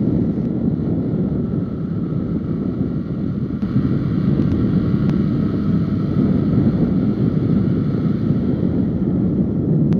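Motorcycle riding at speed, heard through an action camera: steady wind rushing over the microphone with the bike's engine and road noise droning underneath.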